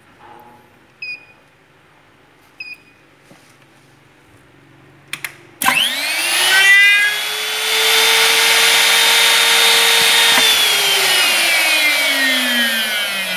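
Mini CNC cam-and-dowel boring machine set to slot-milling mode. Two short keypad beeps and a couple of clicks come first. Then, about five and a half seconds in, its spindle motor spins up with a rising whine, runs steadily for about five seconds, and winds down with a slowly falling whine.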